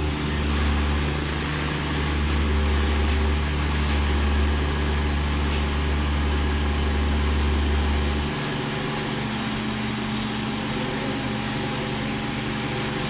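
An engine running steadily, a low hum with several steady tones above it. About eight seconds in, the deepest part of the hum drops away while the engine keeps running.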